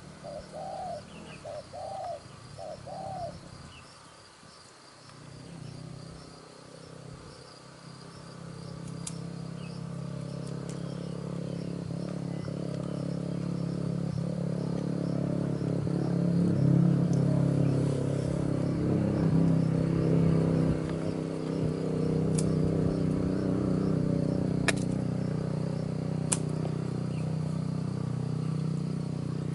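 Spotted dove cooing, about four short coos at the start, over a steady insect buzz. Then an engine hum comes in and grows louder, taking over for the rest, with a few sharp clicks near the end.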